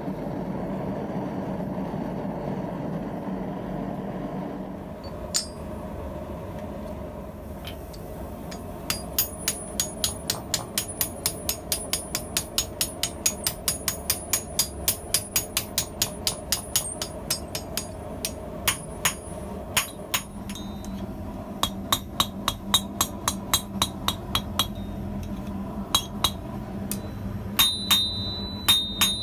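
A gas forge runs with a steady roar for the first few seconds. Then a hand hammer strikes red-hot steel on the anvil, driving a scissor half's finger ring down over a tapered drift in the hardy hole: a fast, even run of about three or four blows a second, then slower, spaced blows, with a ringing strike near the end.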